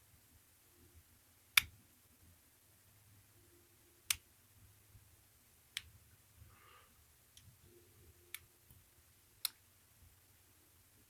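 Sharp metallic clicks from picking a wafer padlock with a flat pick and tension wrench: five separate clicks, irregularly spaced a second or more apart, the first the loudest.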